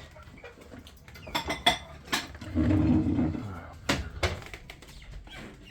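Containers and utensils clattering while chicken feed is being prepared: several sharp knocks and clinks, with a longer, lower rattling sound in the middle.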